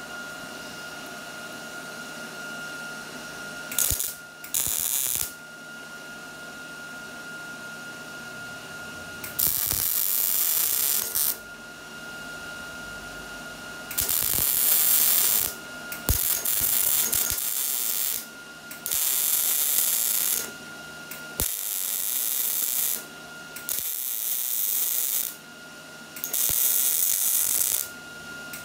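MIG welder arc crackling as a steel bracket is welded onto an exhaust muffler, in a run of bursts of one to two seconds each, starting about four seconds in, with short pauses between them.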